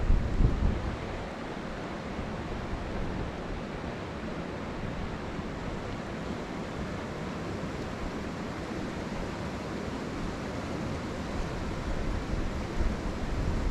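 Steady rushing of river water. Low rumbles of wind on the microphone come about a second in and again near the end.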